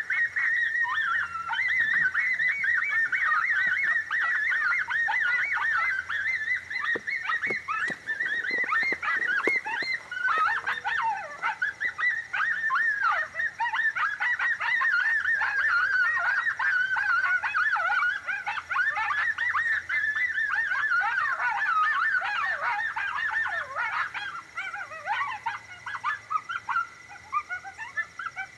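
A rabbit distress sound from a predator game call: a continuous, high-pitched, quickly wavering squealing meant to draw coyotes in. A few short knocks sound about a third of the way in.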